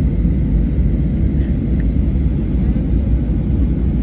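Boeing 737-800's CFM56-7B jet engines and airflow, a steady deep rumble.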